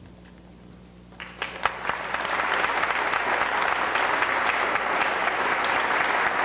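Audience applauding in an auditorium: a few scattered claps about a second in, quickly building into steady applause.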